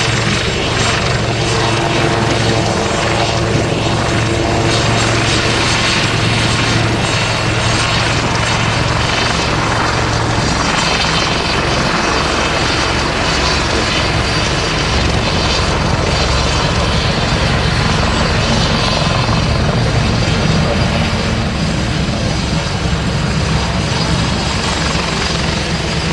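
Westland Lynx AH7 helicopter's main rotor and twin Rolls-Royce Gem turboshaft engines, loud and steady as it manoeuvres low and hovers, with a steady low hum under the rotor noise.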